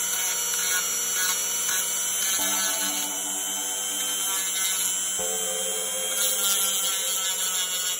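Rotary tool with a sanding drum running steadily as it grinds the rough edge of a ceramic piece during finishing. Background music plays, its held chords changing every few seconds.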